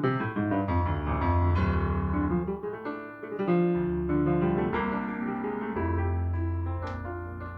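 Jazz piano playing, with chords over long, deep bass notes.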